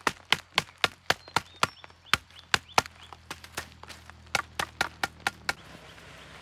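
A machete blade beating a harvested insect nest comb on its branch, a quick run of sharp knocks at about four a second that knocks the brood out. The knocking stops shortly before the end.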